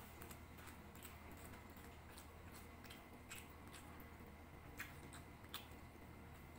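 Faint sounds of eating by hand: scattered small clicks and smacks, with two sharper clicks about five seconds in, over a low steady hum.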